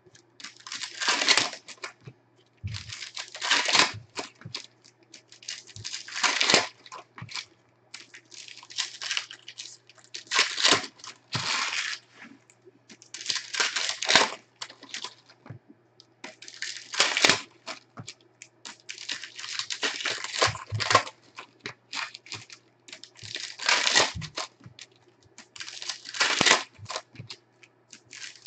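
Foil basketball card pack wrappers being torn open and crinkled by hand, in repeated bursts every two to three seconds, with small ticks of handling between.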